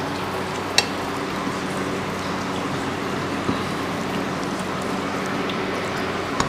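Eating with the fingers: rice and prawn curry being mixed on plates and chewed, with a few sharp clicks, over a steady hiss and low hum.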